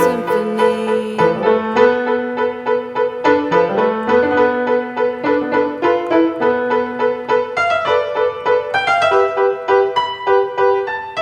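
Piano music: a steady figure of repeated notes, about three a second, over a slowly moving lower line.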